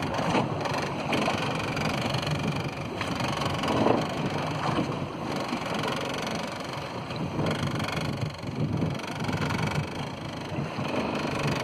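Steady running noise of a fishing boat at sea: engine hum mixed with wind buffeting the microphone.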